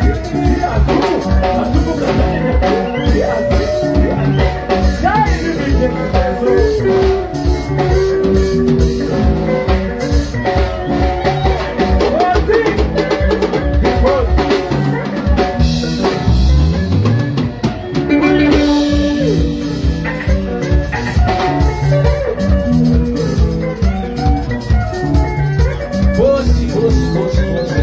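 Live band playing: a drum kit keeps a steady driving beat under electric guitars and bass, with a low note sliding upward about sixteen seconds in.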